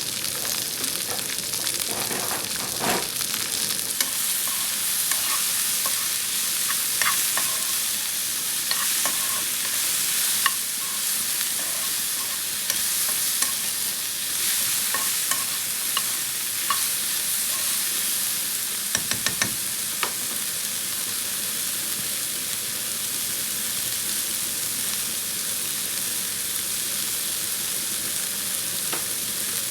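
Food frying in hot oil in a pan: a steady sizzle, with scattered light clicks of a utensil against the pan.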